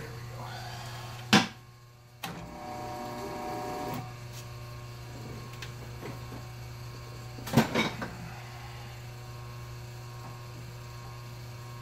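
Sheldon lathe's change-gear train, with its newly fitted replacement gear, under a steady hum. A sharp clunk comes a little over a second in, then about two seconds of mechanical whirring, and a cluster of loud clacks near eight seconds.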